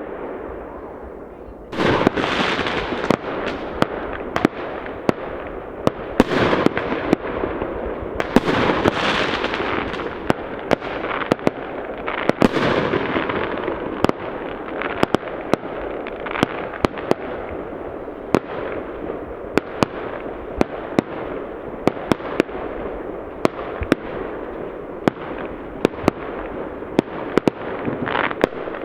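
New Year's fireworks going off all around: a steady, dense crackle and rumble of overlapping explosions, with sharp single bangs about every second. It grows much louder about two seconds in.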